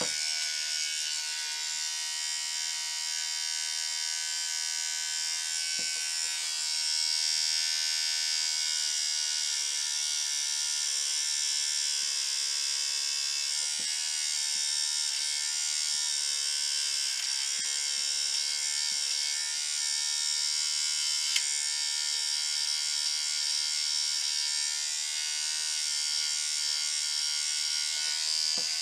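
Small electric hair trimmer buzzing steadily as its blades shear the fuzzy hair head of a pike streamer held in a fly-tying vise, with a few faint ticks along the way.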